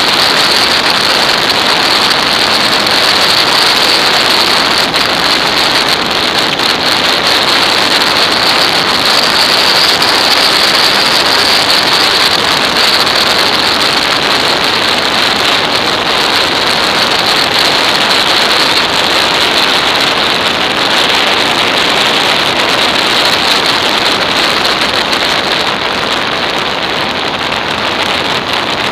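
Steady rush of wind and road noise from a moving motorcycle, with wind buffeting the microphone. It eases slightly near the end.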